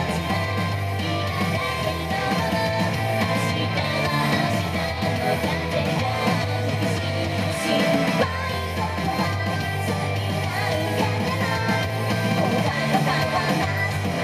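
Idol pop song with girls' singing over a guitar-led band backing, played at a steady level through the stage sound system.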